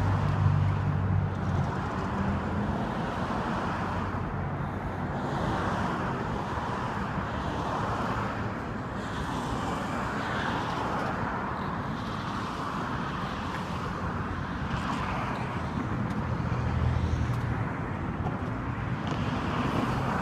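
Road traffic, a steady rumble that swells and fades as vehicles go by, with a low engine hum rising twice.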